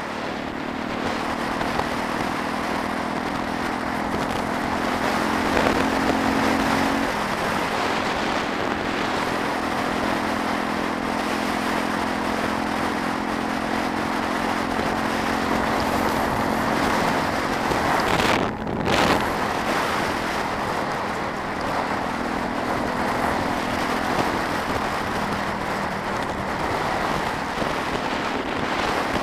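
Suzuki DR350SE single-cylinder four-stroke engine running at cruising speed, heard from the bike with heavy wind rush over the microphone. The engine note drops about seven seconds in, and there is a brief break in the sound around eighteen seconds.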